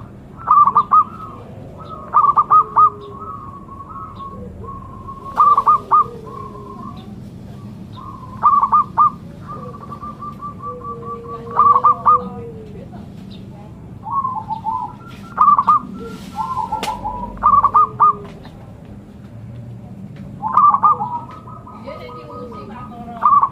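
Zebra dove (perkutut) singing its cooing song over and over, one phrase about every three seconds. Each phrase is a quick run of stuttering notes, sometimes drawn out into a longer steady coo.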